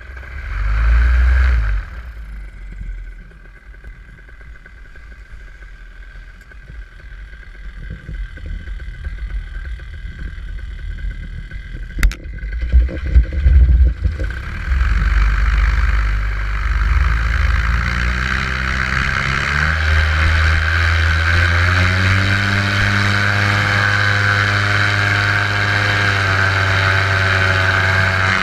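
Paramotor engine and propeller running up to takeoff power: about halfway through the pitch climbs over several seconds, then holds steady at high power. Before that, a low rumble with a few loud knocks.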